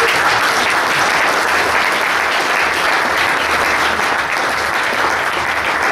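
Audience applauding steadily at the close of a talk.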